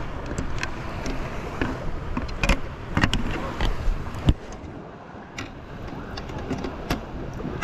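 Water sloshing and dripping around a plastic sand anchor as it is handled in shallow water, with several sharp knocks of its plastic sections, the loudest about four seconds in.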